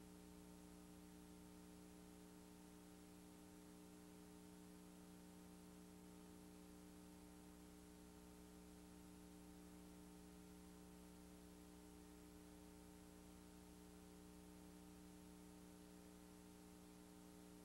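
Near silence: a faint, steady hum with light hiss and nothing else.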